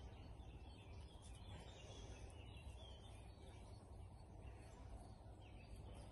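Near silence, with faint birdsong in the background.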